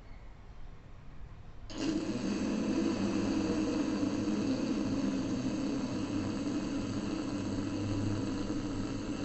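Ujjayi pranayama breath: a long, steady, snore-like rasp drawn through a deliberately constricted throat, starting abruptly about two seconds in. The sound comes from the throat, the sign of the technique done correctly.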